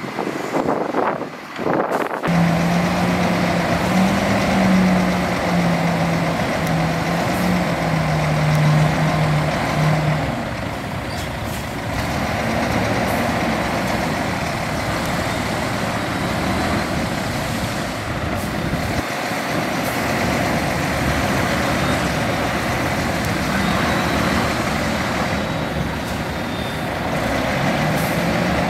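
Heavy diesel earthmoving machinery working, its engine running steadily under a dense wash of mechanical noise. The noise starts abruptly about two seconds in, with a low engine note that wavers in pitch for the next several seconds.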